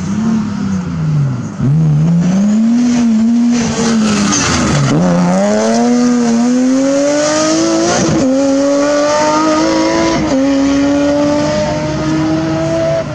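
Rally car engine, a white BMW 3 Series, revving hard: its pitch dips sharply twice in the first five seconds, then climbs steadily through the gears with short drops at two upshifts.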